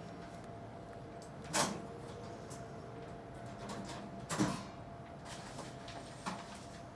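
Faint steady hum of the Fitel S123M12 fusion splicer's cooling fan as it cools the heat-shrunk splice protector. A few sharp knocks cut through it, the loudest about one and a half and four and a half seconds in, and a smaller one near the end.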